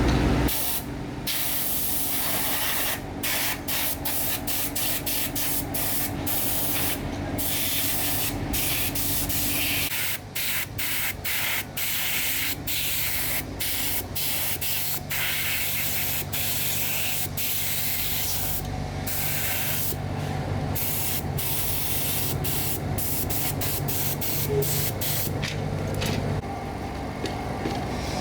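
Hissing spray released in many short bursts with brief pauses between them, over a steady low hum, as parts of a robot vacuum are cleaned.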